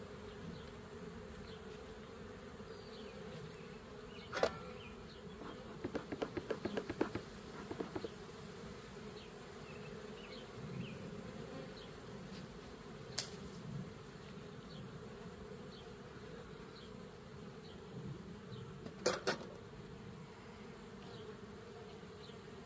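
Honeybees buzzing in a steady hum around an open hive during an inspection. A few sharp knocks break in, with a quick run of clicks about six to eight seconds in.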